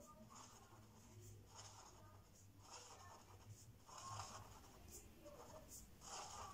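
Fine-tip pen dabbing a row of dots onto paper: short, faint scratchy strokes, about two a second and unevenly spaced, over a low steady hum.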